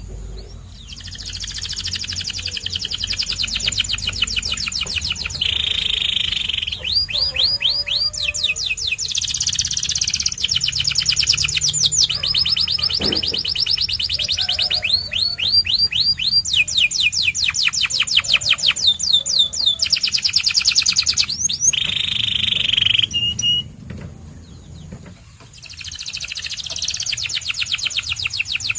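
Domestic canary singing a long song made of rapid trills. Each trill is a fast run of one repeated note, and the bird switches to a new trill every second or two. There is a short break about three-quarters of the way through.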